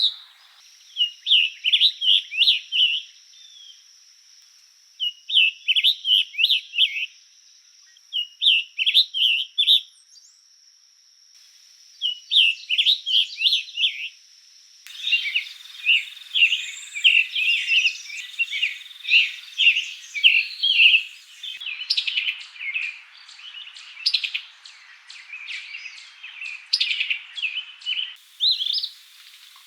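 Songbirds singing in several short recordings one after another. First comes a song of quick phrases about two seconds long, repeated with short pauses, over a faint steady high tone. From about halfway in there is a busier, near-continuous run of chirps and trills.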